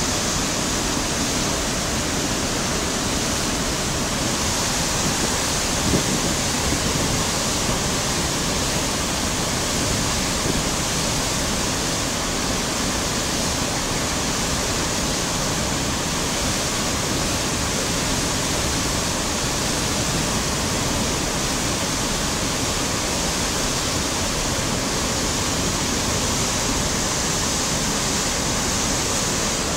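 Water from a small dam release cascading down a gate face and splashing into the river below: a steady rush.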